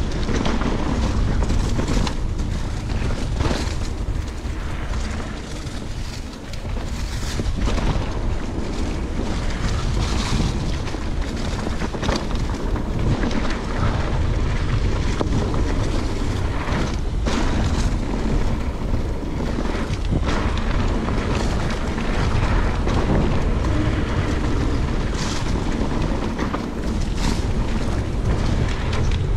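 Wind buffeting the microphone of a camera carried on a moving mountain bike, a steady loud rumble with frequent short knocks and rattles.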